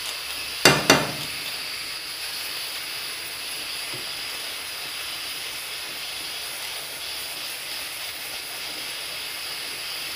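Steady hiss of steam from the pots cooking on a gas stove, with two sharp clacks of a metal garlic press a little under a second in.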